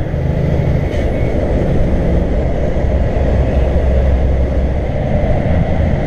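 Laden Kenworth truck's diesel engine running steadily with road noise, heard inside the cab at highway speed; the low engine note shifts a little about a second in.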